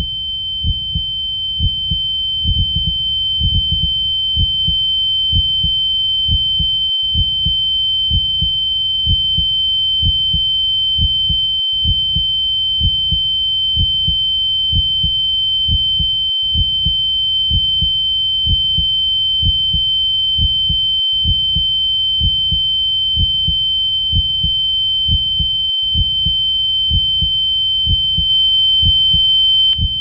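Sound-effect heartbeat beating steadily in regular low thumps. Over it is a loud, steady high-pitched ringing tone and a fainter lower tone, like ringing in the ears after a shock.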